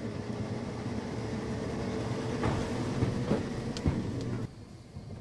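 A 1969 Berlin tram running past close by: a steady rumble of wheels on rails with a constant hum and a few sharp clicks. The noise drops off sharply about four and a half seconds in.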